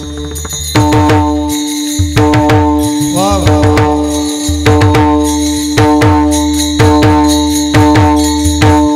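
Varkari kirtan music: pakhawaj drum strokes and hand cymbals keep a steady rhythm, and about a second in a long held melodic note joins them, moving in sustained phrases.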